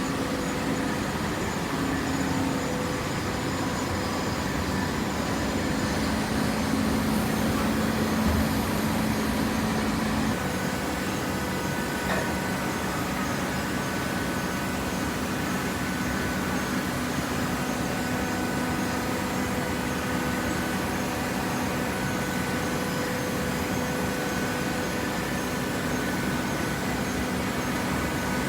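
Large hydraulic cardboard baler running: a steady machine drone with a humming tone from its motor and hydraulic pump, which shifts slightly about ten seconds in.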